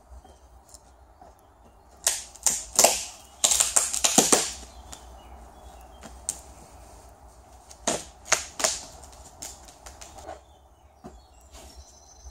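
Fibreglass mould transom being prised free of its waxed plug: bursts of sharp cracking and tapping, two close clusters about two seconds in and another about eight seconds in.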